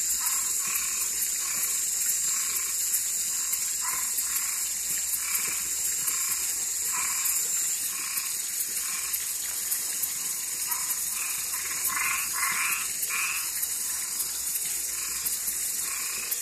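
A night chorus of toads and tree frogs: short calls repeating irregularly, thickest about three-quarters of the way through. Behind them runs a dense high-pitched hiss, with a steady high tone that drops out about halfway.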